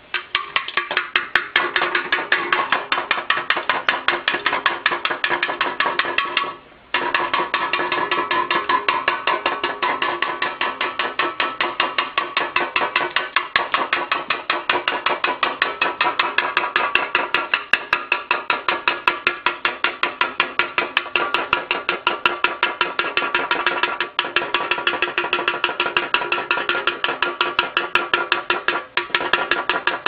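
Cockatiel rapidly butting and pecking an empty aluminium can, a fast, steady run of metallic knocks with the can ringing, broken by a short pause about seven seconds in.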